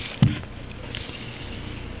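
A single short, low burp about a quarter of a second in.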